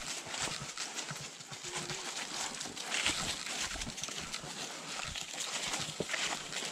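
Footsteps crunching and rustling through dry leaf litter and undergrowth as a handler and a leashed tracking dog move along a blood trail; the sound is a steady run of short irregular crackles.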